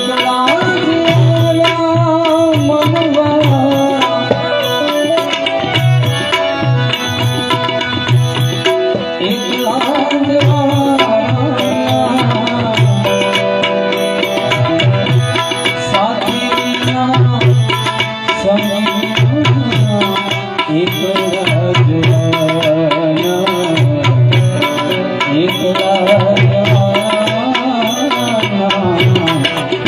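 Instrumental interlude of a Gujarati devotional song (bhajan): tabla playing a steady rhythm under a melody instrument whose notes slide up and down, with a high tick keeping the beat.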